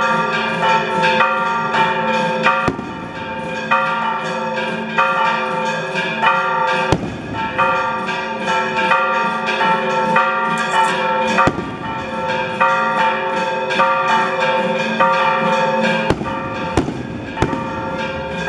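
Bells ringing in a quick repeating pattern. A few sharp bangs cut through about 3, 7 and 11 seconds in, and a cluster comes near the end.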